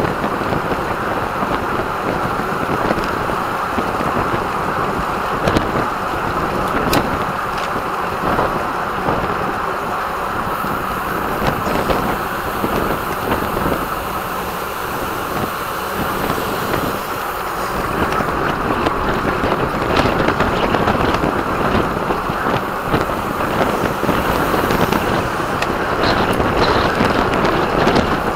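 Steady rushing of wind over the microphone, mixed with the tyre and road noise of a bicycle at race speed, with a few short clicks.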